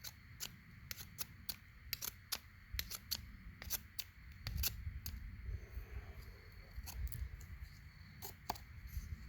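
A blade raking shavings off a stick of soft, ant-damaged wood for fire tinder: a series of short, sharp scrapes at an uneven pace, about two a second.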